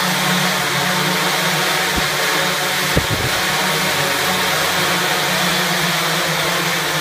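Dozens of small electric motors and propellers on a homemade person-carrying multicopter running together in a steady whirring drone while it hovers, with a short knock about three seconds in.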